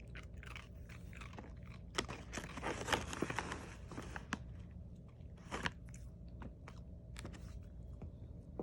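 A puppy chewing and crunching dry kibble, in irregular clusters of crunches.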